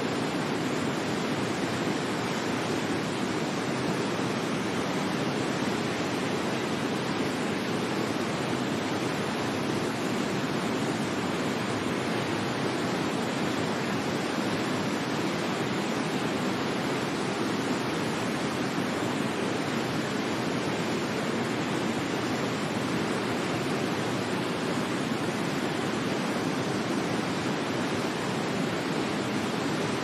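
A waterfall rushing in a steady, unbroken wash of falling water, with no pauses or changes.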